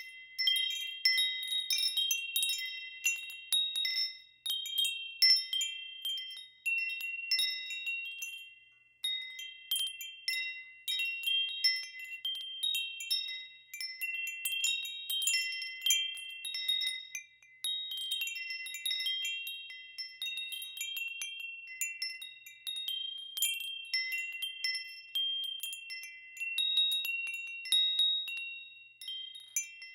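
Wind chimes ringing continuously in irregular, overlapping strikes. A few bright high tones ring on and blend into one another.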